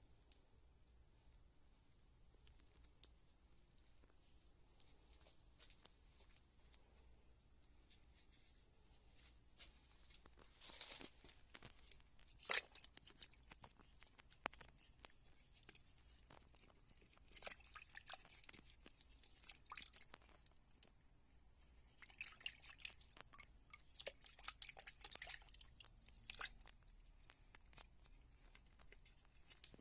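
Faint scattered clicks, taps and scrapes of wet investment plaster being knocked and picked off a freshly cast silver shift knob, over a steady faint high whine.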